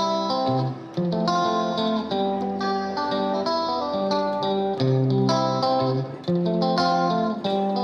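Background music: a plucked guitar tune, note after note.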